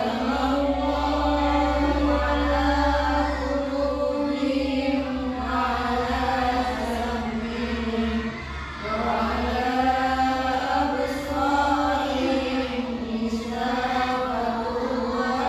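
Qur'an recitation chanted melodically by a woman's voice, in long drawn-out notes, with a brief pause for breath about eight and a half seconds in.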